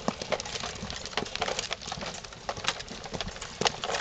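Footsteps of a group walking on an asphalt road: many irregular, overlapping boot steps.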